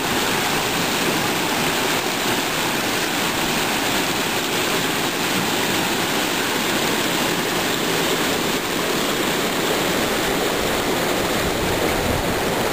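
Fast water rushing steadily through a drainage ditch at a road culvert outlet, a strong current at moderate flow.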